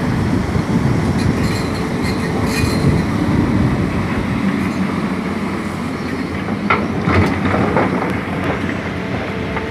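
Hydraulic excavators at work cutting a rock road bed: heavy diesel engines running steadily, with metallic clanks and knocks from buckets and tracks, a cluster of knocks about seven seconds in.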